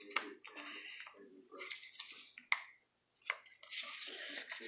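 Handling noise from a mini cleaver and its hard plastic sheath, apparently being worked into or out of the sheath: a few sharp clicks spread through, with scraping and rubbing in between, more of it near the end.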